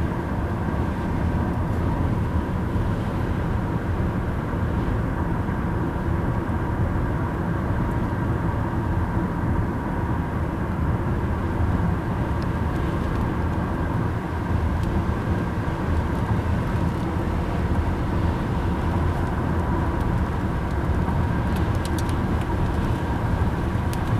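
Steady low road and wind rumble inside a moving car, with a faint steady tone running through it.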